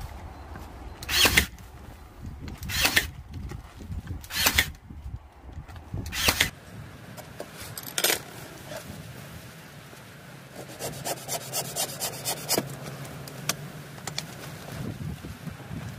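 Ryobi cordless brad nailer firing brads into wooden battens on an MDF panel: four sharp shots about a second and a half apart, then one more a couple of seconds later. Around two-thirds of the way in comes a run of light, quick clicks.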